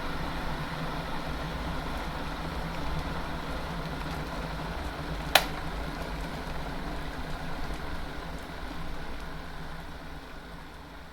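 Electric kettle boiling with a steady rushing rumble. About halfway through comes a single sharp click, typical of the kettle's thermostat switching off at the boil, and the boiling noise then slowly dies away.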